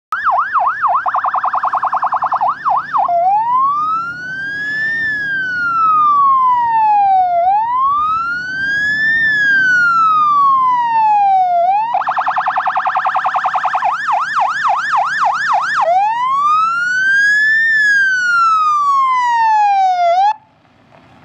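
Electronic police-style siren alternating between a fast warble and a slow wail. It opens with about three seconds of rapid yelping, then long wails, each rising for about two seconds and falling for about two and a half. A second fast stretch comes about twelve seconds in, followed by more wails, and the siren cuts off suddenly near the end.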